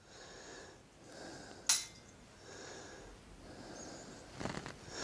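A man breathing softly and audibly, with several short breaths about a second apart. A single sharp click comes about a second and a half in.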